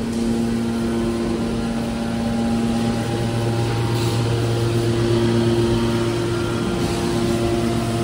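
Hydraulic power unit of a scrap metal baler running: electric motors and hydraulic pumps giving a steady humming drone, whose tone changes about three seconds in.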